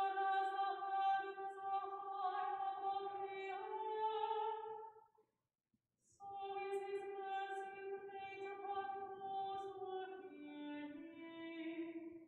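A single high voice chanting in church, two long phrases each held mostly on one reciting note, the first lifting slightly near its end and the second stepping down, with a short pause between them: the plainchant-style singing of the psalm between the readings.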